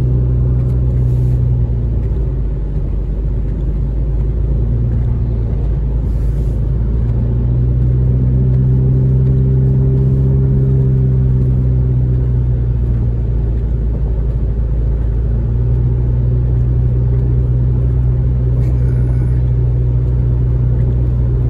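Inside a moving car on a wet road: a steady low drone of engine and road noise, with a hum that eases off twice before returning.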